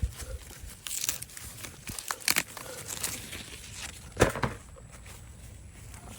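Dry corn leaves and stalks rustling and crackling as they are handled and pushed through, with a sharp crack about four seconds in.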